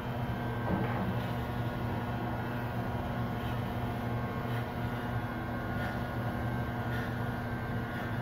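Corded electric hair clippers running steadily as they are moved through short hair, a continuous even hum with faint light ticks now and then.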